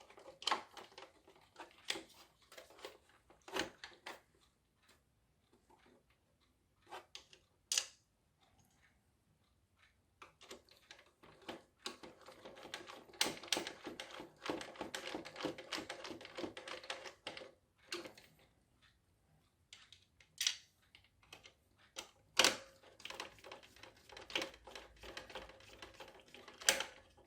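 Clicks, taps and light clattering of a small plastic radio-control toy car being handled and put back together, with two longer stretches of rapid fine clicking, one around the middle and one near the end.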